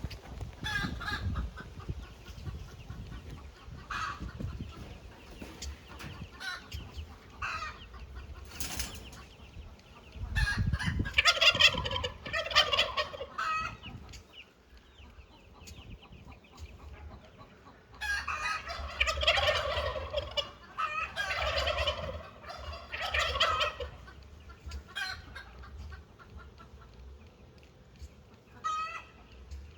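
Farm poultry calling: one long pulsing call about eleven seconds in and three more in a row from about eighteen seconds, with lighter knocks and handling noise between.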